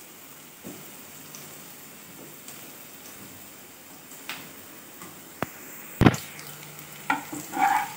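Quiet kitchen room tone with a few light clicks and a sharper knock about six seconds in.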